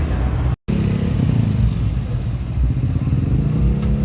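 Road vehicle engines running in street traffic, mostly a low rumble. The sound cuts out completely for a split second about half a second in.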